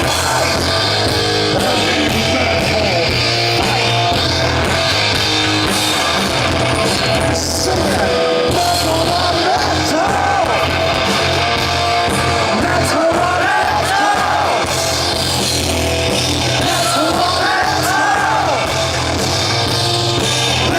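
Heavy metal band playing live and loud: distorted electric guitars over bass and drums, with a high melody line wavering in pitch in the second half.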